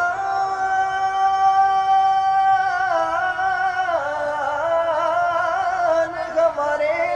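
A solo voice singing an Urdu naat, drawing out one long ornamented note with a quivering vibrato that steps down in pitch about three and four seconds in.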